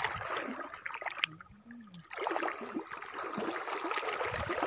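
Shallow seawater splashing and sloshing as people wade through it, in a dense irregular stream of small splashes, with a short lull about a second and a half in.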